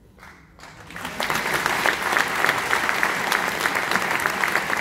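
Applause from a theatre audience, starting about a second in, building quickly and then holding steady as many hands clap.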